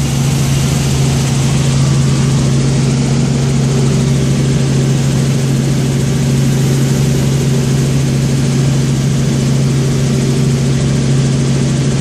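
Helicopter engine and rotor heard from inside the cabin in flight: a steady drone with a strong low hum.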